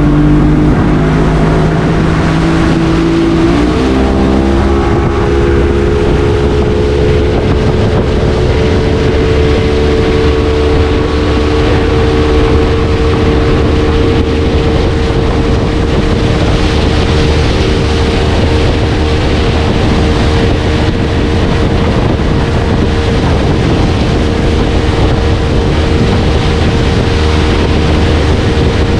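A small tour boat's motor running under way. It speeds up with a rise in pitch about three to four seconds in, then holds a steady speed. Wind buffets the microphone throughout.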